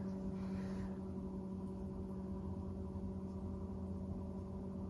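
Electric potter's wheel running with a steady, even hum while a pot is being thrown.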